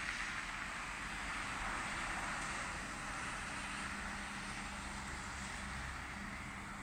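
Traffic passing on a snow-covered street: a steady rush of tyres on the snowy road that swells about two seconds in and eases off. A low engine hum from a passing bus comes in the second half.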